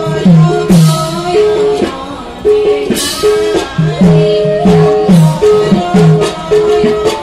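Bhaona accompaniment music: runs of deep drum strokes, two or three a second with a pause in the middle, each stroke dipping slightly in pitch, over a steady held melody note that breaks off and resumes, with cymbal clashes.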